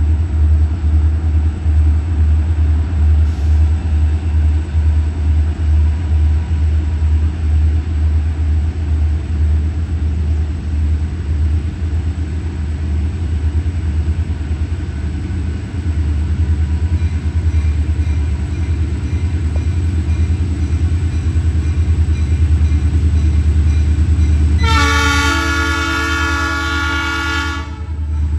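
Diesel freight locomotive approaching slowly with a deep, steady engine rumble, then one horn blast of about three seconds near the end, several notes sounding together.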